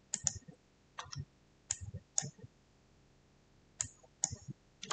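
Computer mouse and keyboard clicking: about eight short, sharp clicks, several in pairs, with a quiet gap of about a second and a half in the middle.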